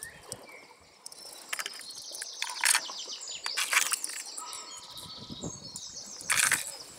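Hard plastic fishing lures clicking and rattling against a plastic tackle box as they are picked out of its compartments, a few sharp clatters loudest near the end, with birds chirping in the background.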